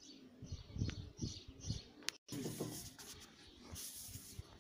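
Racing pigeons cooing around the loft, a few low pulsing coos. The sound drops out briefly about two seconds in.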